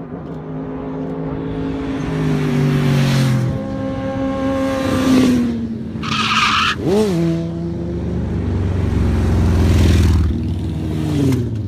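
Several sport bike engines running as the group approaches, their pitches rising and falling under the throttle, with a sharp rev blip about seven seconds in and a deeper rumble as the nearest bike comes close. A brief high squeal sounds just before the blip.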